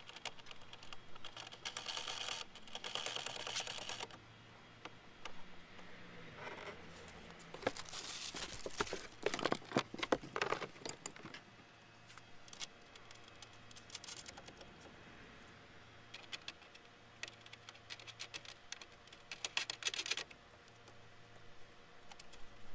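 Scattered clicks, taps and rustling of plastic taillight and trim parts being handled and fitted on a car's rear door, with the busiest clatter about eight to eleven seconds in.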